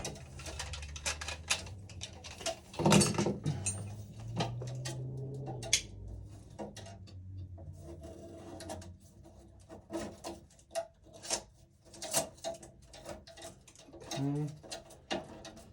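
Hands and a tool working wires inside a residential breaker panel: scattered light clicks, taps and knocks of metal and plastic, with a louder knock about three seconds in.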